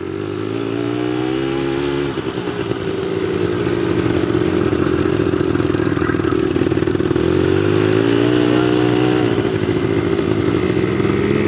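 ATV engine under way, its pitch rising as it accelerates, easing off about two seconds in, then rising again and dropping back about nine seconds in.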